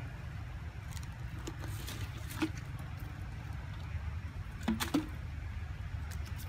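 Scattered light clicks and knocks of discarded plastic bottles and cups being handled by baby macaques, sharpest about two and a half seconds in and again near five seconds in, over a steady low rumble.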